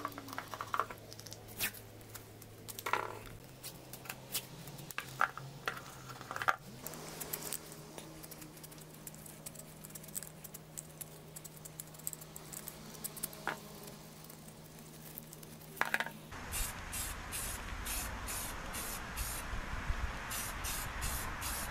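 Scattered light clicks and knocks of metal engine parts being handled and taken off. Then, from a little past the middle, a spray paint can being shaken, its mixing ball rattling in quick strokes about three times a second over a steady hiss, with a short pause near the end.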